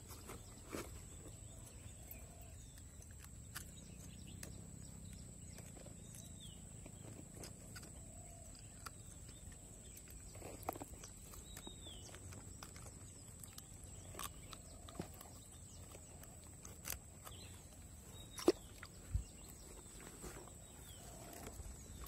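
Faint, scattered clicks and taps from a hand handling a hooked fish and a spoon lure's treble hook, with two sharper knocks near the end. A thin steady high whine runs underneath.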